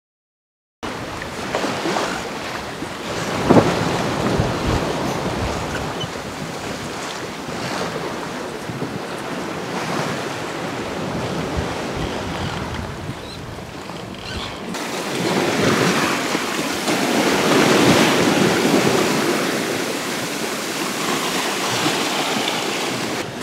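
Wind and waves aboard a sailboat under sail: the sea rushing and breaking alongside the hull, with wind buffeting the microphone. It starts about a second in, has a single knock at about three and a half seconds, and swells louder for a few seconds past the middle.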